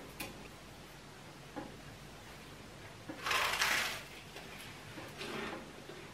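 A crunchy bite into over-toasted bread, loudest a little after three seconds in, with a few faint clicks of tableware around it.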